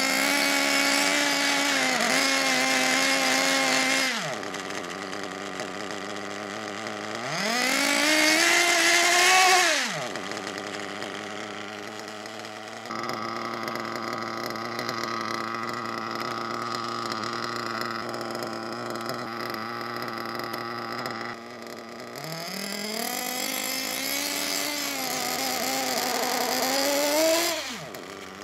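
Small two-stroke nitro RC car engine being run in, revving up three times for a few seconds each and dropping back to a steady idle in between.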